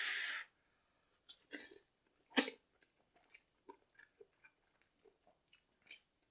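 A person eating spicy instant fire noodles: a breathy hiss at the start, then soft chewing with many small wet mouth clicks, and one sharper click a little over two seconds in.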